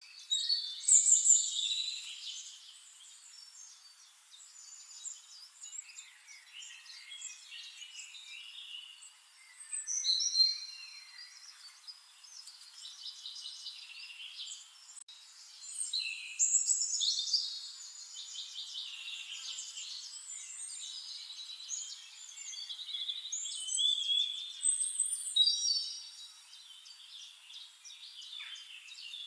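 Songbirds singing, with phrases of high whistles and fast trills that come in louder bursts every few seconds and overlap at times.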